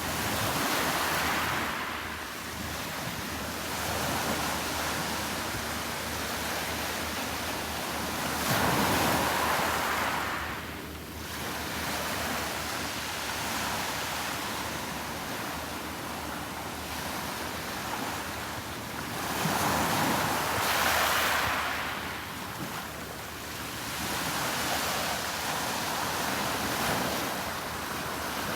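Sea surf washing onto the beach as a steady rush, swelling louder and fading back as waves come in, about every seven to ten seconds.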